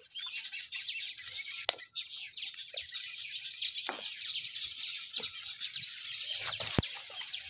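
Many small birds chirping busily in a dense, high-pitched chorus, with a few sharp clicks from dry twigs being handled.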